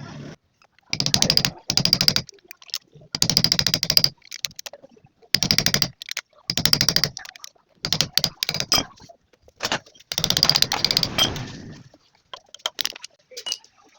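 Repeated bursts of rapid mechanical clicking, about eight of them, each half a second to a second and a half long with short gaps between.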